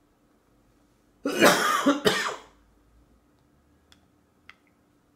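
Two coughs in quick succession, about a second in. Near the end, two faint clicks of a spoon against a steel bowl.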